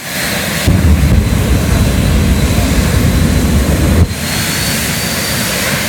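Jet dragsters' jet engines running at the starting line: a loud steady roar with a thin high turbine whine over a heavy low rumble. The rumble comes in under a second in and drops away briefly about four seconds in.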